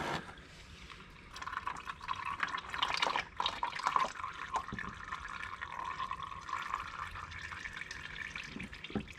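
Warm engine oil draining from a motorcycle's sump in a thin stream into a bucket already holding oil: a steady trickling and splashing that swells and fades, picking up about a second in. It is the old break-in oil coming out at the first service.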